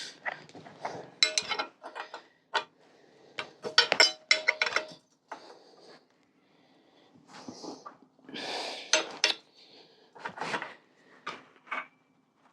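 Irregular metal clinks, knocks and short scrapes of a spanner working on a steel bicycle frame's bottom bracket cup, some strikes ringing briefly; the cup is stuck and being forced loose.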